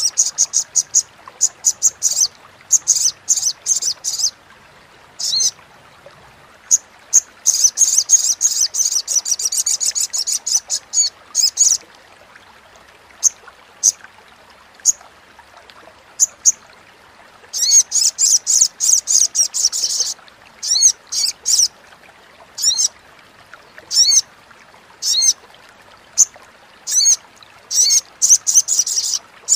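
Olive-backed sunbird (sogok ontong) giving its rapid, high-pitched chattering 'crecetan' call: fast runs of sharp chirps, with a sparser stretch of single notes about halfway through, then quicker runs again.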